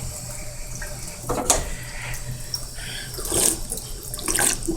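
Drinking fountain running: a stream of water splashing into the basin as someone drinks from it, with a few louder swells and a steady low hum underneath.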